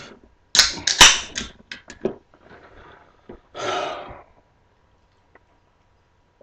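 A man's throaty throat-clearing and burping while chugging carbonated Sprite. There is a loud rough burst with a sharp crack about a second in, and a shorter one a little before four seconds.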